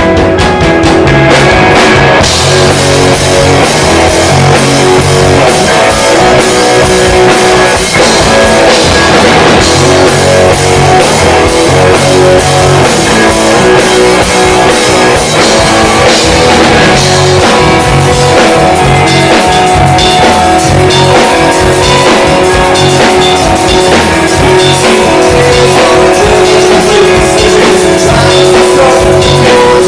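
Rock band playing live, an instrumental passage of loud guitar over a drum kit with no vocals.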